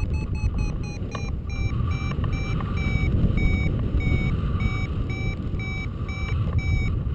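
Paragliding variometer beeping in short, evenly spaced tones, about two to three a second, over a steady rush of wind on the microphone; the beeping is the signal that the glider is climbing in lift. A little after a second in, the beeps slow slightly and drop a little in pitch.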